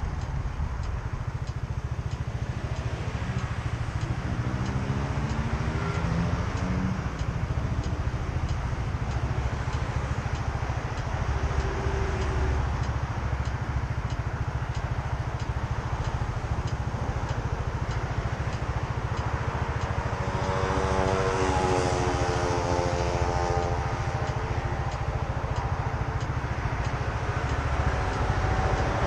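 Motorcycle engine running on the move over a steady low rumble, its pitch rising about four to seven seconds in as it accelerates, with a stronger engine note again about twenty seconds in.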